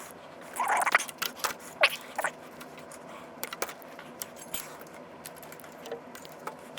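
Hand tools and metal parts being handled on an old power-supply chassis during a teardown: a quick run of sharp clicks and short squeaks in the first couple of seconds, then scattered light clicks.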